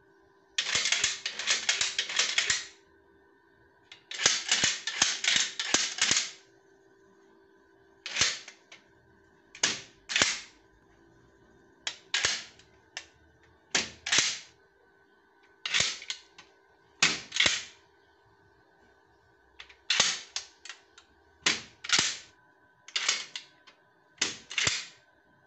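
Steel sliding-bolt door latch worked by hand, the bolts and hinged lever arm clacking and rattling metal on metal. Two long runs of clatter come first, then short pairs of clacks every second or two, over a faint steady hum.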